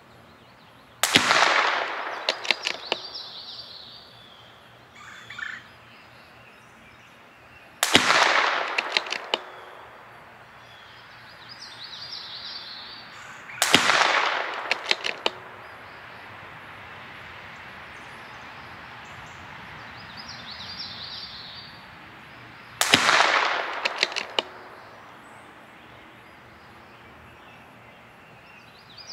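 CZ 457 MTR bolt-action .22 LR rifle firing Eley Match, four single shots spaced several seconds apart: about a second in, about 8 s, about 14 s and about 23 s. Each is a sharp crack followed by about a second of echo.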